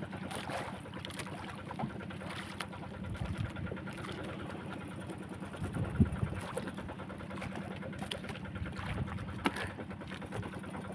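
A small engine running steadily with a fast, even low pulse. There are a few sharp knocks, and a louder thump about six seconds in.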